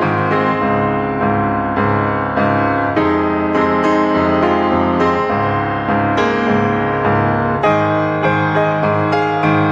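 Background music: a piano piece playing steadily.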